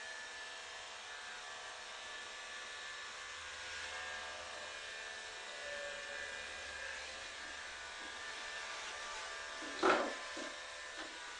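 Electric hair clippers running with a steady buzz. About ten seconds in, a short, louder sound cuts in once.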